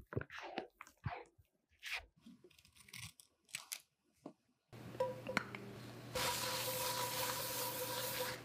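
Plastic piping bag full of batter crinkling and squishing as it is filled and handled. From about five seconds in, a steady hiss with a faint hum takes over and grows louder about six seconds in.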